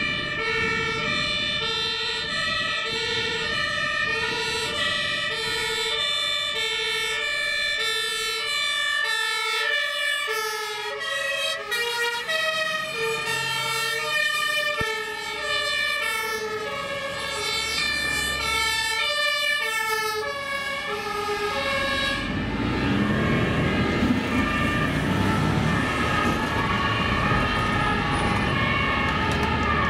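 German two-tone emergency-vehicle sirens (Martinshorn), several at once, each stepping back and forth between a high and a low pitch and drifting out of step with one another. About two-thirds of the way through, the siren tones drop back under louder engine and road noise from fire engines driving past.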